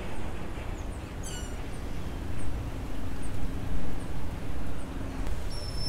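Wind rumbling on the microphone in gusts outdoors, with small birds chirping faintly a few times and a faint steady hum in the middle.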